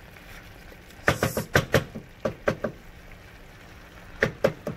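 Wooden spatula stirring sliced squash and peppers in a stainless steel pot, clacking against the pot in three short runs of knocks: about a second in, a little after two seconds, and near the end.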